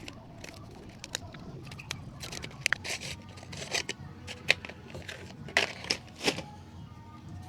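Handling noise while unpacking a cordless reciprocating saw: a string of irregular clicks, scrapes and crinkles of packaging. The loudest snaps come about four and a half and six seconds in.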